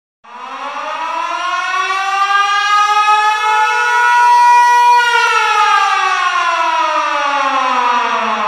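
A siren winding up, its pitch rising steadily for about five seconds, then slowly falling.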